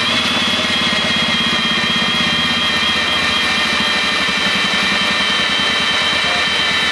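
Ridgid cordless drill driving a hole saw through a plastic junction box. A steady motor whine runs over a fast chatter of the saw teeth cutting the plastic, with the pitch drifting slightly lower as it cuts.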